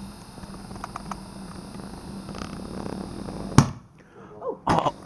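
Garden fireworks: a steady fizzing hiss, then a single sharp bang about three and a half seconds in, followed by a couple of shorter bursts near the end.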